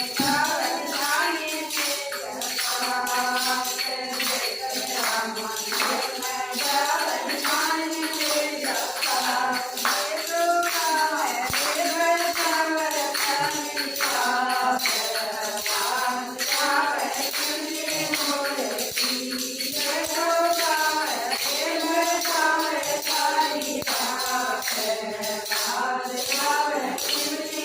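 A Haryanvi bhajan: a woman singing in a melodic line over a steady jingling tambourine rhythm, with a held note droning underneath.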